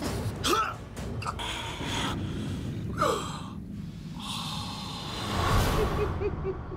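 A man gasping and breathing hard in strained, noisy breaths, with a falling groan about three seconds in and a long hissing exhale. Near the end come a few quick, stifled chuckles.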